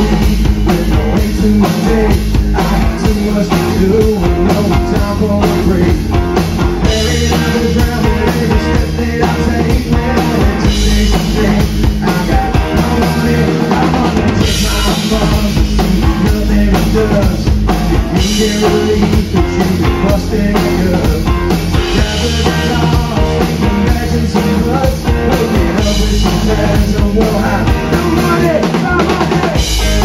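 Live country band playing amplified on stage: drum kit keeping a steady beat under electric and acoustic guitars.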